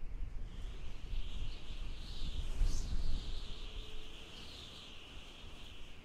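Strong wind gusting in the mountains: a low, uneven rumble under a higher hiss. The gust swells to its loudest about halfway through and eases toward the end.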